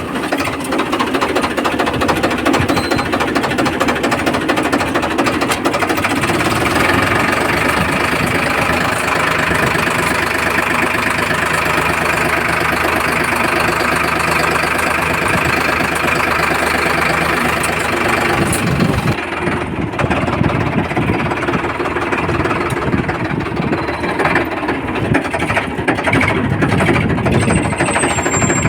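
Farmtrac 60 tractor's diesel engine running with a knocking clatter. Its note strengthens about a quarter of the way in, holds for about ten seconds, then changes and settles back.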